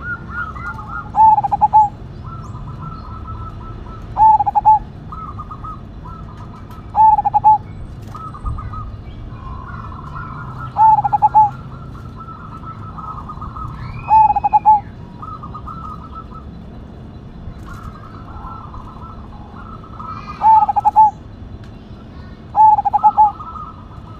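Zebra dove (perkutut) cooing: seven short, loud two-part coos at one pitch, a few seconds apart, over steady softer chirping of other birds.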